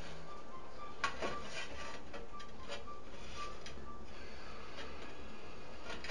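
Ceramic wall tile being pressed and shifted by hand into tile adhesive: a few light clicks and taps, the clearest about a second in, over a steady background hum.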